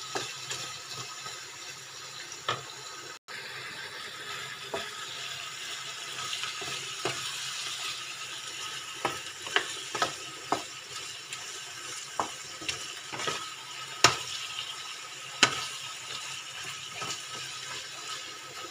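Chicken, pineapple and mushroom pieces sizzling in a sauce in a non-stick wok, with a wooden spatula stirring and knocking sharply against the pan at irregular intervals.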